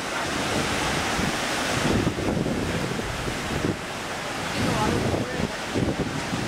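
Ocean surf breaking and washing over rocks in a steady rush, with wind buffeting the microphone in low gusts.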